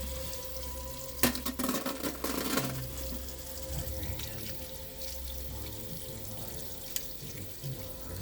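Hard-boiled chicken eggs being cracked and peeled by hand: a cluster of sharp cracks and crackling shell from about one to two and a half seconds in, with a lone click later, over a steady watery hiss.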